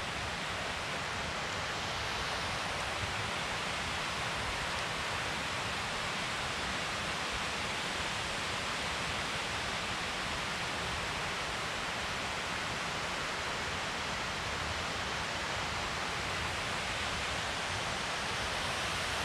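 A steady, even rushing noise of open-air ambience by a river, unbroken and without any distinct events.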